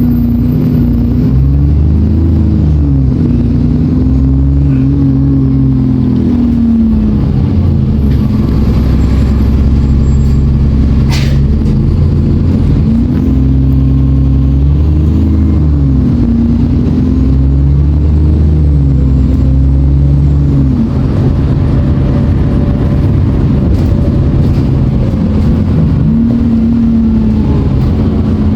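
Diesel engine of an Alexander Dennis Enviro400 double-decker bus working hard, its pitch repeatedly rising and dropping back as it pulls through the gears, with engine thrash and a faint turbo whine rising and falling with it. A single sharp click about eleven seconds in.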